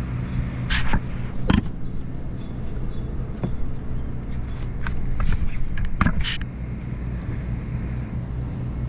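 A steady low machine hum with several even tones, broken by a handful of knocks and clatters and two short hisses, the first about a second in and the second a little past six seconds.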